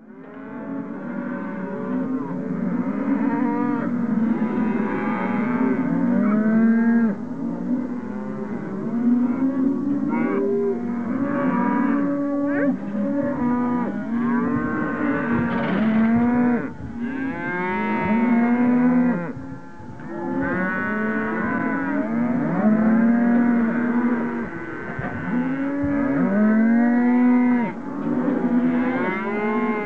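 A herd of cattle mooing, many long overlapping moos following one another without a break.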